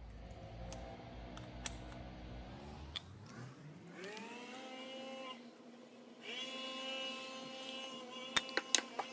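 Background music of sustained tones, shifting with a rising glide about three to four seconds in. Near the end come a few sharp clicks of small parts being handled.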